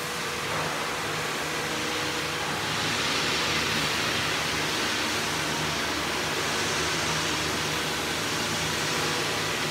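Steady fabrication-shop background noise: an even hiss with a faint low hum, a little louder from about three seconds in.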